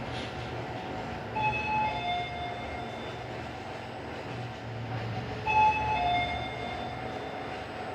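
Hyundai elevator chime sounding a two-note falling ding-dong twice, about four seconds apart, over the steady low hum of the running elevator.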